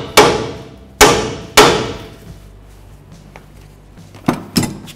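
Hammer striking a steel 21 mm socket set over a tie rod end stud on the steering knuckle. There are three sharp, ringing metal blows in the first two seconds, then two lighter knocks near the end.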